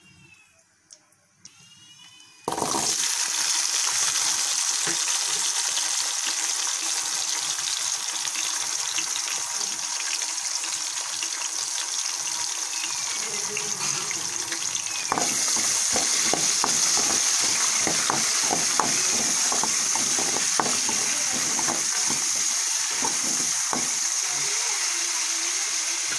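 Shallots and whole spices frying in hot oil in a kadai: a steady sizzling hiss that starts suddenly a couple of seconds in and gets louder about halfway through.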